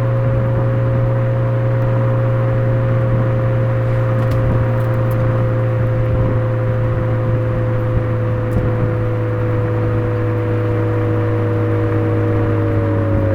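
Suzuki Swift Sport ZC33S with a Fujitsubo aftermarket exhaust, its 1.4-litre turbocharged four-cylinder giving a steady drone at constant revs, the pitch easing down very slightly.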